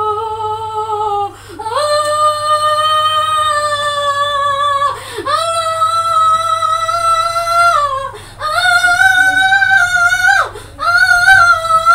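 A high voice singing five long held notes in a row, each one to three seconds, with short breaks between them. The first note is lower and the rest are higher, and each note slides down as it ends.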